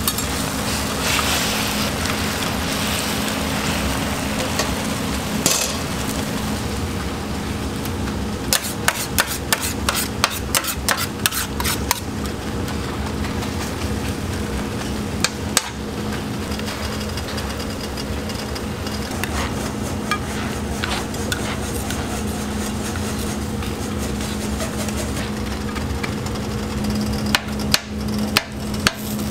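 Egg, shredded cabbage, carrot and ham frying on a flat steel griddle, with a metal scraper striking the griddle plate as it chops the egg layer into portions: quick runs of sharp clicks about a third of the way in and again near the end. A steady hum runs underneath.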